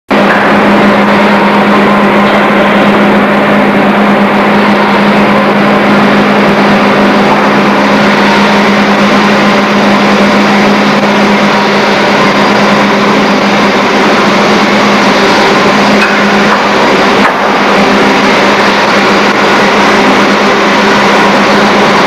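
Loud steady shop-floor machinery noise in an induction-furnace plant: a continuous low electrical hum over a dense roar, with a brief knock about three-quarters of the way through.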